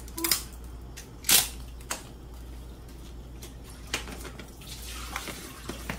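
Lawry's seasoned salt shaker being shaken over meat: a few short, separate shakes and taps, the loudest about a second and a half in, over a low steady hum.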